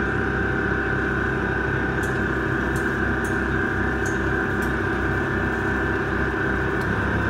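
Electric air compressor for a truck's air-bag suspension running steadily: a loud motor hum with a high whine and a few faint clicks. Near the end its tone changes, the higher part dropping away and the low hum growing stronger.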